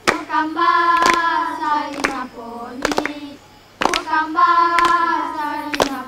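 Children singing a song together, clapping their hands along about once a second.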